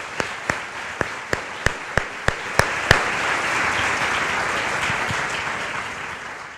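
Audience applauding. For the first three seconds, single sharp claps stand out at about three a second; then the applause thickens into a full, even ovation that fades near the end and cuts off.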